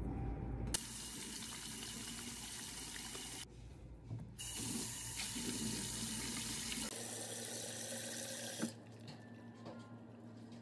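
Tap water running into a washbasin as hands are washed under it. The flow breaks off briefly about four seconds in, then resumes, and drops away near nine seconds.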